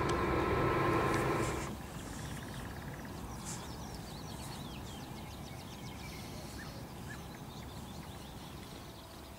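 A steady mechanical hum with several held tones stops abruptly under two seconds in. After it, faint birdsong: scattered short chirps and quick little calls over a quiet background.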